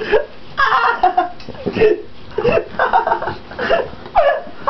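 A person laughing in short, broken bursts.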